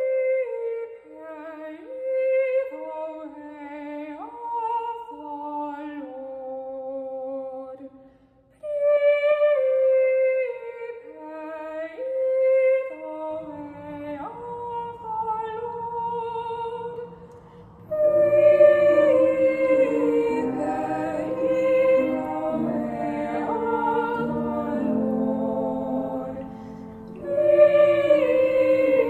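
A young woman's solo singing voice carries a slow melodic phrase, twice over. About 13 seconds in, lower voices join in harmony. From about 18 seconds, a fuller choir of young female voices sings together, louder.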